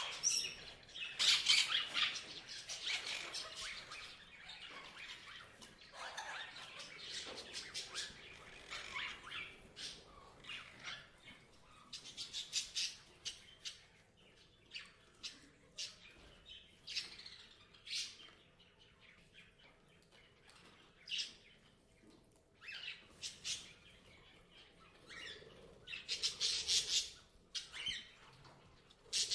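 Parrots chirping and squawking in quick clusters of short, high calls, with quieter gaps between the clusters. The calls are busiest near the start and again near the end.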